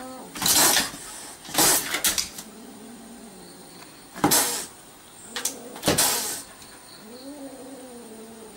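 Cat hissing in short sharp bursts, six times, at a dog through a car window, then a low drawn-out yowl that rises and falls near the end.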